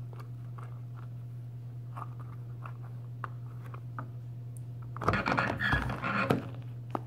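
Small rubber RC crawler tire being handled: faint clicks and rubs as it is turned in the hands, then about five seconds in a loud, second-long crunching rustle as the tire is pressed down and squashed against a wooden tabletop. A steady low hum runs underneath.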